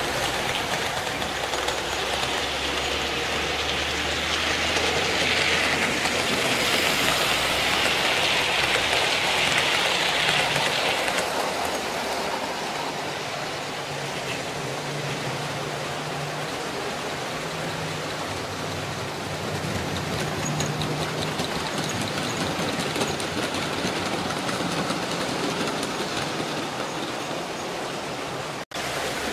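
OO gauge model trains running round a layout: a steady mechanical running noise of small electric locomotives and wheels on track, louder for the first ten seconds or so, with a brief dropout near the end.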